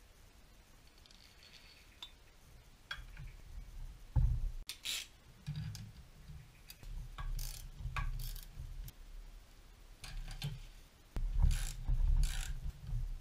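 Ratchet wrench clicking in short runs as it turns the threaded rod of a bushing press tool, pressing a rubber bushing into an aluminium control arm. The steel press parts knock and scrape on the bench. Quiet handling for the first few seconds, then the clicking and knocks start about four seconds in.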